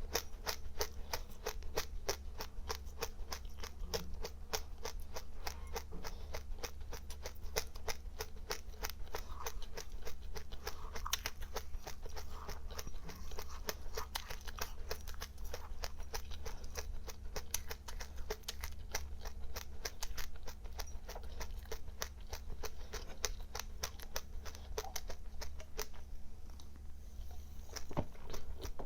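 Close-up chewing of crunchy seeds (sesame, buckwheat or passionfruit seeds): a fast, steady run of small crackling crunches, many a second, easing off near the end.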